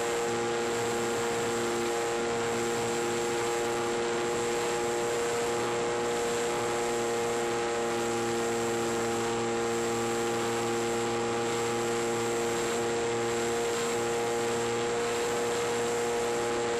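Steady electrical hum and hiss with several constant tones; a few of the tones step slightly a few times.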